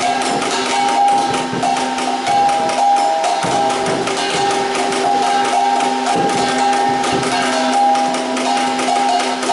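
Background music: a melody over a fast, clicking percussive beat.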